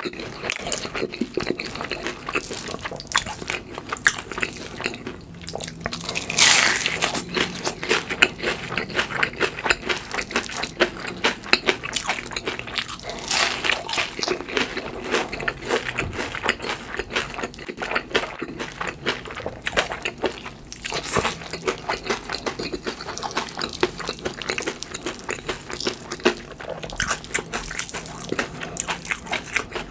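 Biting and chewing a crispy hash brown: steady crackly chewing, with several louder crunches from fresh bites.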